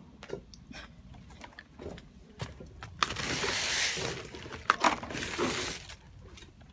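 Footsteps and the knocks and rubbing of a phone carried by hand while walking: scattered clicks and taps, with a louder rustle from about three seconds in until about six.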